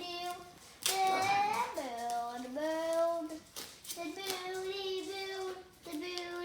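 A child singing a wordless sing-song tune in long held and sliding notes, with a few short clicks from hands handling something.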